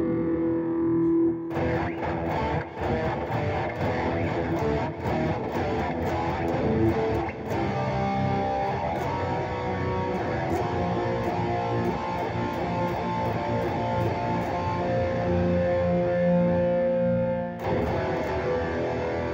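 Electric guitar music: held chord notes, then from about a second and a half in a busier picked and strummed passage with many sharp attacks, returning to held ringing notes near the end.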